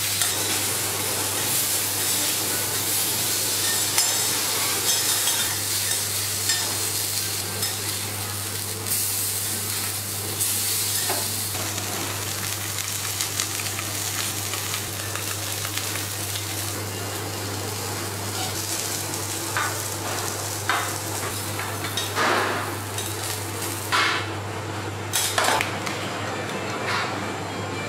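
Salmon fillets sizzling on a hot steel teppanyaki griddle, a steady hiss over a low hum. Later on come a few sharp clinks of a metal spoon against small stainless steel sauce cups on the plate.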